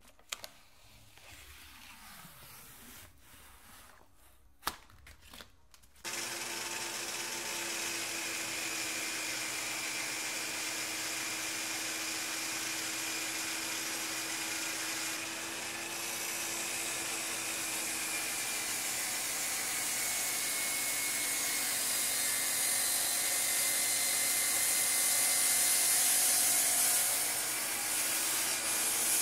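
A few light knocks as the zero-clearance fence is handled. Then, about six seconds in, the shop vacuum on the miter saw's dust hood switches on abruptly and runs steadily, with a faint steady hum under its rushing whir.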